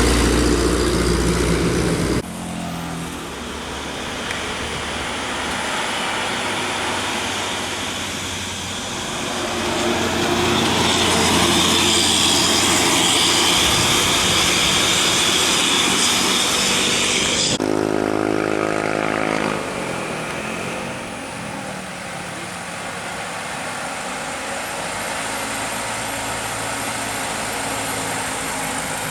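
Large buses driving past on a road, with engine and tyre noise. A loud rushing noise builds in the middle as one passes close. The sound changes suddenly about two seconds in and again past halfway, where a brief pitched tone is heard.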